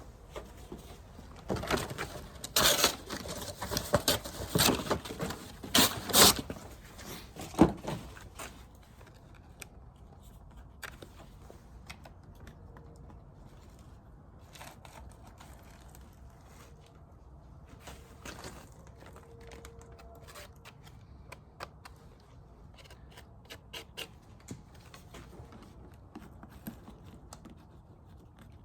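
Beehive boxes and frames being handled and pried apart: sharp clicks, knocks and scraping of wood. It is busy for the first eight seconds or so, then settles into sparse light clicks.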